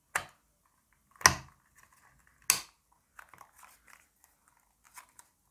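Hard plastic housing of an Arzum Ironmix hand blender clicking and knocking as its shell pieces are pressed and fitted together by hand. Three sharp clicks come about a second apart, followed by faint handling ticks and rustles.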